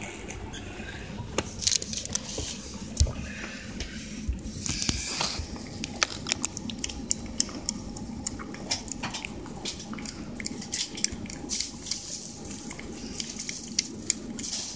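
A cat licking and eating a soft, lickable puree treat (Churu) from a plastic bowl: quick, wet smacking clicks of tongue and mouth, irregular and several a second.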